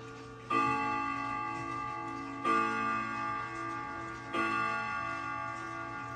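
Emperor grandfather clock striking the hour at 4 o'clock: three single strokes about two seconds apart, each a sudden struck note that rings on and fades.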